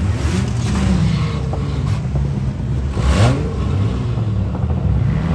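Demolition derby car's engine revving up and down repeatedly, heard from inside the car. A brief harsh noise comes about three seconds in.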